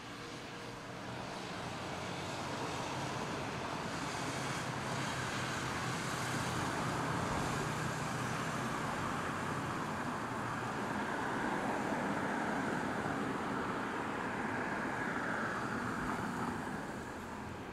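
A motor vehicle passing on the street: a steady noise that swells over several seconds, holds, then fades away near the end.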